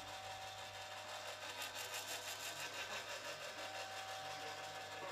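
The internal mechanism of a vintage taxidermy hare automaton running as it moves its head and arms: a steady mechanical whirring with a constant hum.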